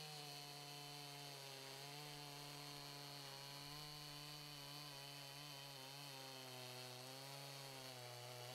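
Faint sound of a Makita two-stroke gas chainsaw running at high speed, its pitch wavering slightly as the Carlton chain cuts through stacked 4x4 posts under load.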